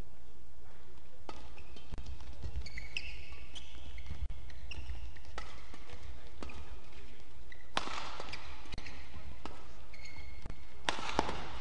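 Badminton doubles rally: rackets striking the shuttlecock in sharp hits about once a second, at irregular intervals, with short squeaks of players' shoes on the court floor.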